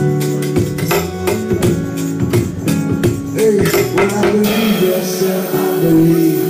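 Live acoustic band music: acoustic guitar and upright bass playing with a steady percussion beat. The percussion drops out about four and a half seconds in, leaving guitar and bass.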